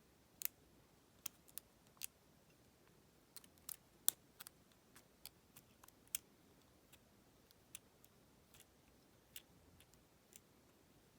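Faint, irregular small metallic clicks and ticks of a lock pick working the pins inside a Federal PL90PE lockout padlock, one or two at a time with short gaps between.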